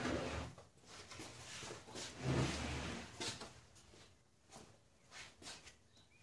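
Large wood-framed plywood floor panel being slid and shifted by hand across sawhorses: wood scraping, with a heavy dull knock about two seconds in and a few light clicks and taps later on.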